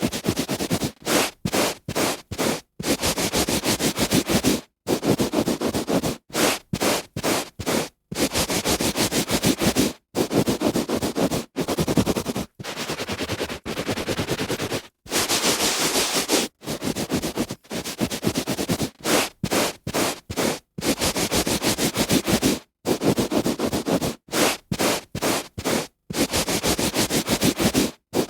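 A hand rubbing on a carpet: scratchy strokes from a fraction of a second to about two seconds long, broken by short silent gaps.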